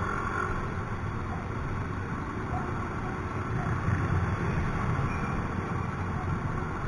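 Ride noise from a scooter moving in traffic: a steady low rumble of the small engine and wind on the microphone, with the hum of nearby motorcycles and cars.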